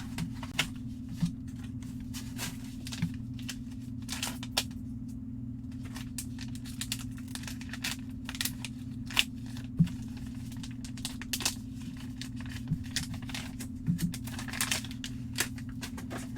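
Trading-card packaging and cards being handled and opened by hand: scattered sharp clicks, brief rustling and tearing, over a steady low hum.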